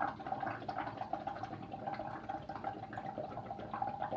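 Air blown through a drinking straw into a bowl of soapy water, bubbling continuously as a mound of foam builds up over the rim.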